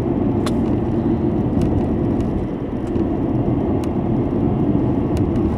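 Road noise of a car driving, heard from inside the cabin: a steady low rumble of tyres and engine, with a few light ticks.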